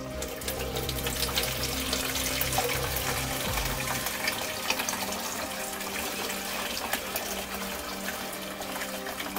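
Wort running from the mash tun's tap through a mesh sieve into a plastic jug, a steady splashing trickle.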